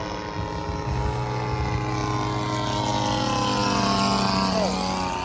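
Small turbine engine of a radio-controlled model jet running after touchdown: a steady whine made of several tones, with a few short falling tones near the end.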